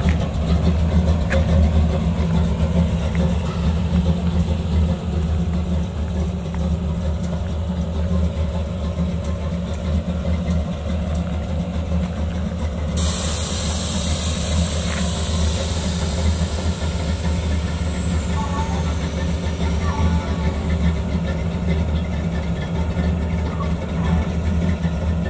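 Chevy C10's V8 idling steadily. About halfway through, a sudden hiss of air starts and slowly fades, typical of the air-ride suspension letting air out of its bags.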